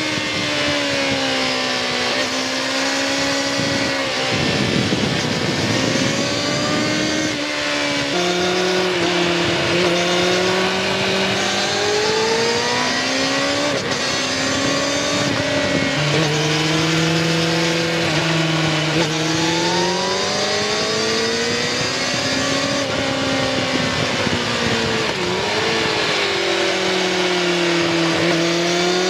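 2019 Kawasaki ZX-6R 636's inline-four engine through its stock exhaust, heard close to the pipe while riding: the engine note rises and falls as the throttle opens and closes. The pitch drops suddenly at gear changes about eight and sixteen seconds in, and for a few seconds early on the note turns rough and loses its clear tone.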